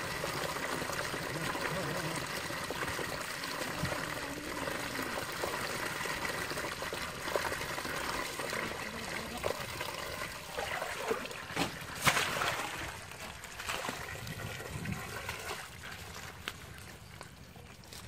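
Water running steadily through a net and splashing into a woven basket fish trap full of small puti fish. A few sharp, louder splashes come about twelve seconds in, and the sound grows quieter toward the end.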